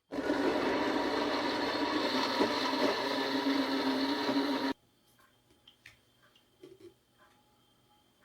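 An electric kitchen appliance motor runs steadily for about four and a half seconds, starting and cutting off abruptly, with a steady hum under the noise of the blades or contents.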